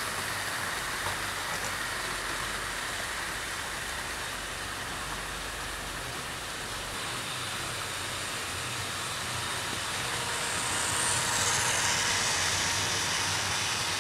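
OO gauge model trains running on track: a steady whir of motors and wheels on the rails, a little louder about eleven seconds in as trains pass close.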